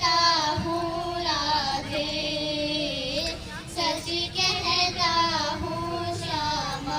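A young girl singing a melody, holding long notes with a wavering vibrato and pausing briefly between phrases.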